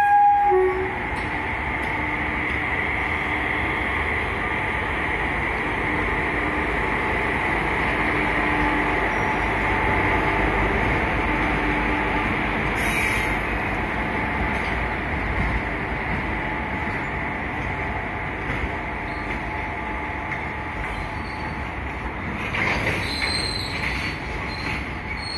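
Freight train of BCNA covered wagons hauled by a WAG7 electric locomotive rolling past on the rails: a steady rolling rumble of wheels on track with faint squealing tones that come and go. The locomotive's horn cuts off about half a second in.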